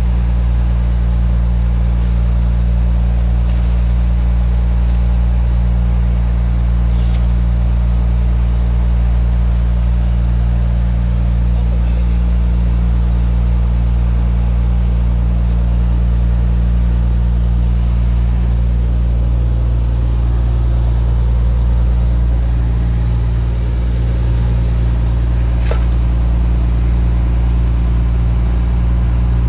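Fishing boat's engine running at a steady speed, a continuous low drone with a thin, constant high whine above it.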